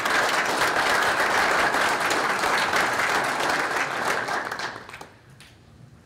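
An audience applauding, a dense patter of clapping that dies away about five seconds in.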